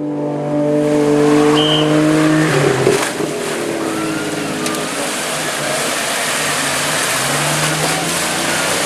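Off-road trial car's engine running hard, holding a steady note for the first couple of seconds, then shifting up and down in pitch amid a loud rushing noise. A single sharp knock comes about three seconds in.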